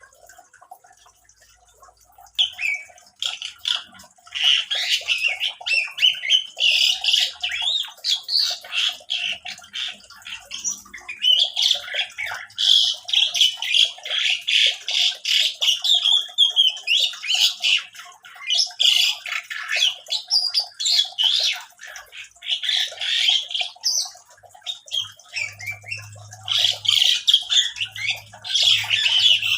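A caged pet bird calling in fast runs of short, high chirps, starting about two seconds in and coming in bursts with brief pauses.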